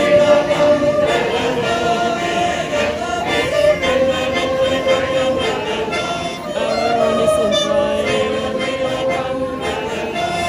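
Swiss folk yodel group: men's voices singing long held notes in harmony, sliding slowly between pitches, with Schwyzerörgeli button accordions.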